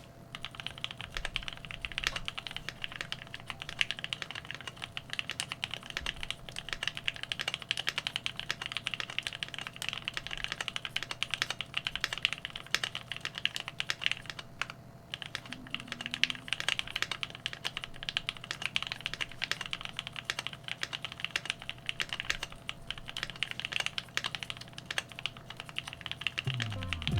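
Continuous fast typing on a Keychron Q2 gasket-mounted aluminium mechanical keyboard with lubed and filmed Gateron KS-3 Milky Yellow linear switches: a dense stream of keystroke clacks, with a brief pause a little past halfway.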